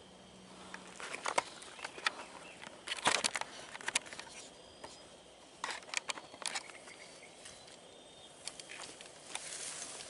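Handling noise: irregular clusters of rustling and clicking as the camera is moved and set down and the rifle is brought into a seated shooting position in dry grass. The loudest burst comes about three seconds in, and another starts near the end.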